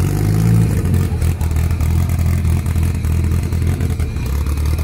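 Twin-turbo VW Gol drag car's engine idling, a steady low note that wavers slightly, with light clatter.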